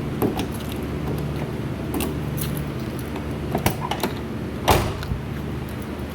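Jeep Comanche idling with a steady low hum, with scattered light clicks and one loud thud a little under five seconds in.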